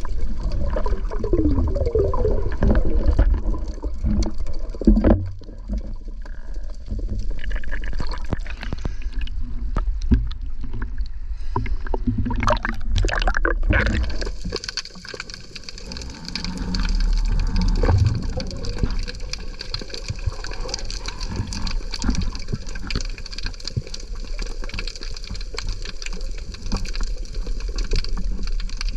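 Sea water sloshing and gurgling around the camera, with a deep rumble and scattered knocks; about halfway through it settles into a steadier hiss.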